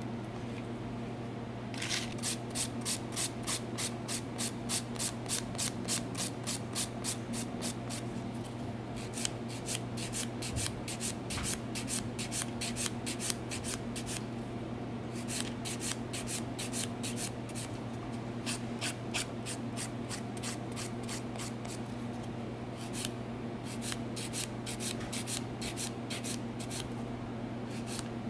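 A handheld nail file rubbed back and forth over a bare fingernail after gel removal, in runs of quick rasping strokes, about three a second, with short pauses between runs. A steady low hum runs underneath.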